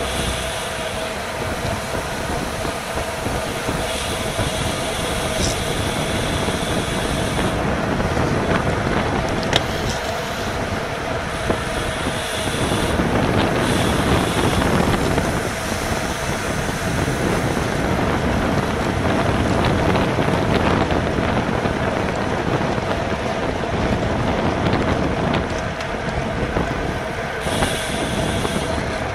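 Wind rushing over an action camera's microphone on a racing bicycle at speed, with road and tyre noise underneath and a faint steady hum.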